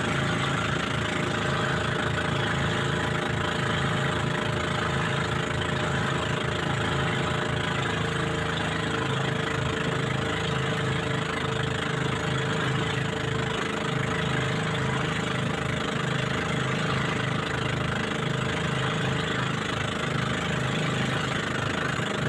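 Motorized bangka's engine running steadily at cruising speed, a constant drone that does not change.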